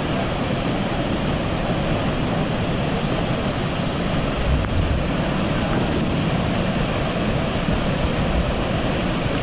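Steady roar of Niagara Falls and the churning river below, with wind buffeting the microphone.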